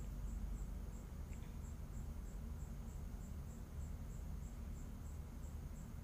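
Cricket chirping steadily in the background, a short high chirp about three times a second, over a low steady hum.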